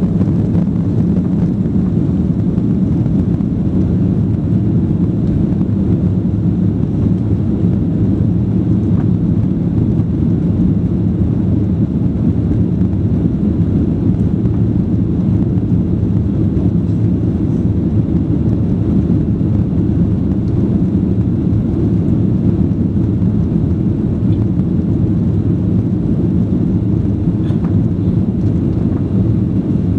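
Steady jet engine and airflow noise heard inside the cabin of a Boeing 737-800 with CFM56-7B engines, a constant low rumble with no changes.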